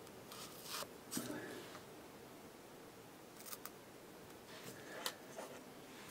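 Several faint, short snips of small fly-tying scissors, spread out with pauses, cutting slips from mallard primary wing feathers.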